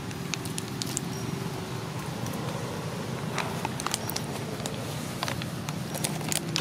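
Outdoor background with a steady low hum and scattered light crackles and taps, like dry leaves and grit being disturbed.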